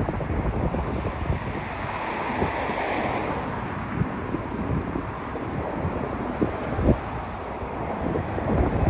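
Wind buffeting the microphone in gusts over a steady rush of noise.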